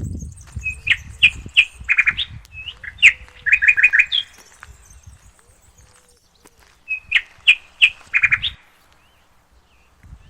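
A songbird singing two phrases of quick repeated notes, the first about a second in and the second around seven seconds in, with fainter high twittering at the start.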